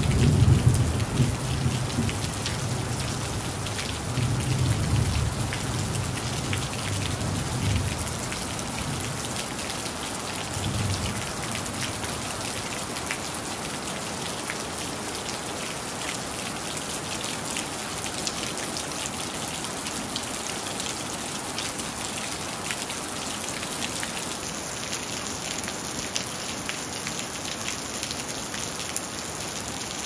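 Steady rain falling on a hard surface, an even hiss dotted with individual drop impacts. A low rumble of thunder rolls through the first several seconds and dies away by about a quarter of the way in, with one more short, fainter rumble soon after.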